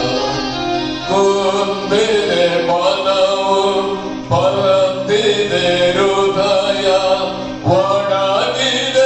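Devotional singing: a voice sings a slow, chant-like melody in long held notes over a steady low drone.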